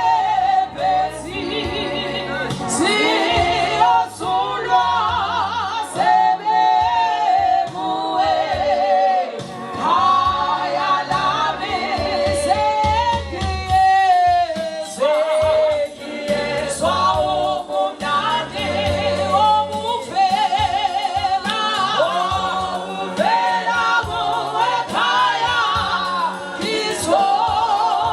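Gospel music with a choir singing over a steady bass line.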